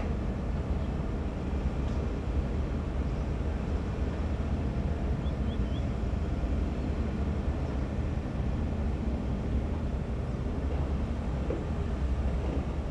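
Excavator diesel engines running in a steady low rumble.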